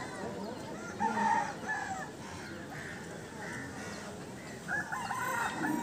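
A rooster crowing, once about a second in and again near the end.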